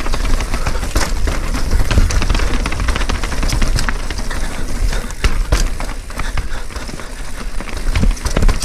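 Mountain bike riding down a rough technical trail: tyres and frame clattering over rocks and roots in a stream of sharp knocks and rattles, over a constant low rumble.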